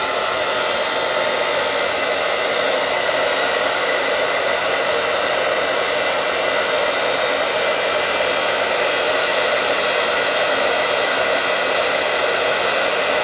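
Handheld blow dryer running steadily on its lowest blower and heat setting: an even rush of air with a faint steady whine.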